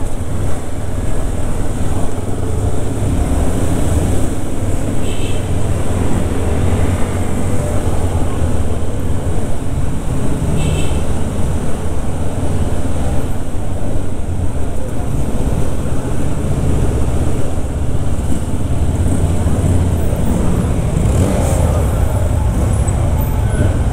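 VMS motorcycle engine running at low town speed amid street traffic, a steady low rumble. Brief high chirps twice in the middle.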